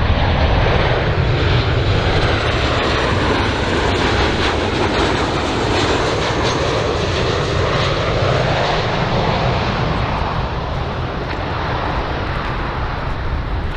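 Boeing 737-8Z6 (BBJ2) jetliner on final approach to land, its CFM56 turbofan engines running as a loud, steady rush of jet noise.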